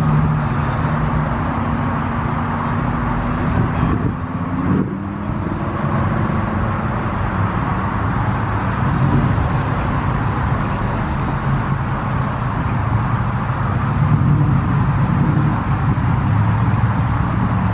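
Car engine idling steadily, a low hum under a haze of outdoor noise.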